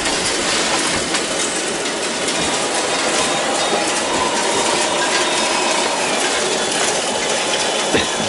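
Radio-controlled scale loader working, with a steady mechanical clatter of small gears and running gear. A faint whine holds for about two seconds in the middle, and there is a sharp click near the end.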